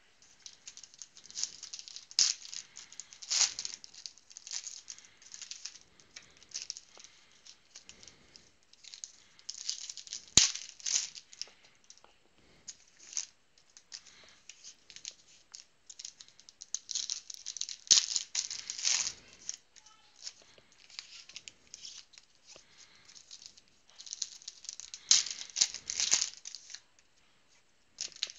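Foil trading-card packs being torn open and their cards handled and stacked on a wooden tabletop: spells of crinkling foil and rustling, slapping cards, with a sharp click about ten seconds in.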